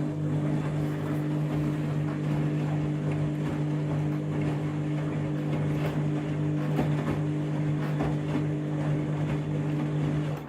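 Candy washing machine running during its final rinse, a steady motor hum over a rushing noise.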